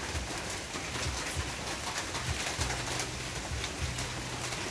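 Steady patter, like rain on a roof, with many small ticks, under low tones that come and go every second or so.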